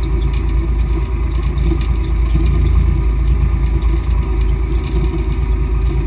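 Volvo BM 430 tractor's diesel engine running steadily under load while pulling a plough, heard from inside the cab.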